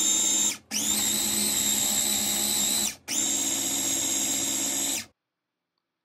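Small electric food processor running hard, blending frozen banana chunks with a splash of milk into a smooth purée. The steady motor whine drops out twice as the button is let go and pressed again, spinning back up each time, then cuts off about five seconds in.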